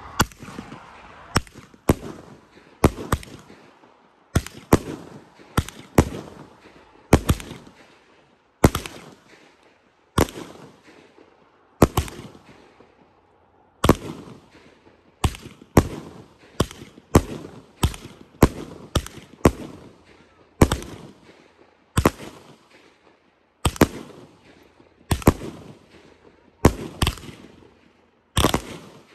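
A 25-shot consumer firework cake firing shot after shot: a long run of sharp bangs, unevenly spaced from about half a second to two seconds apart, each trailing off in a fading tail.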